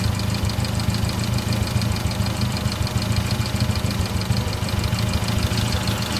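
Car engine running steadily while burning off Sea Foam spray top engine cleaner, the treatment making it smoke heavily. A low, even drone is laid over a rapid, regular light ticking.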